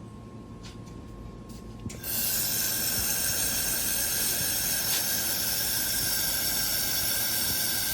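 Laser welding machine welding a seam: a loud, steady hiss with several high whining tones starts suddenly about two seconds in and holds steady.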